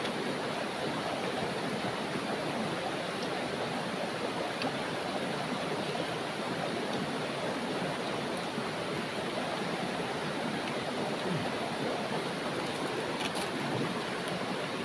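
Shallow river rushing over rocks: a steady, even rush of flowing water, with a couple of faint clicks near the end.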